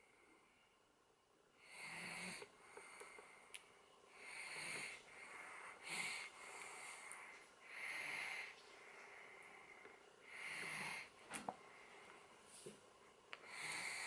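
A person's faint, wheezy breathing close to the microphone, about one breath every two seconds.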